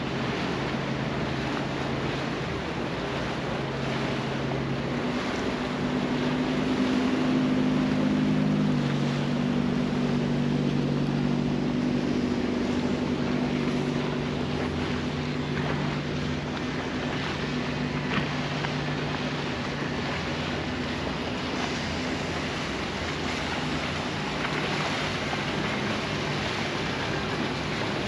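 A motor humming steadily over a steady rushing noise; its pitch steps up between about five and nine seconds in, then holds.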